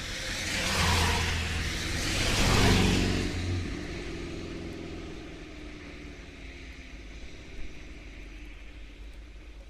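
Vehicles passing on a rain-wet highway: the hiss of tyres on wet road and a low engine drone swell twice in the first three seconds, then fade into a steady hiss of rain.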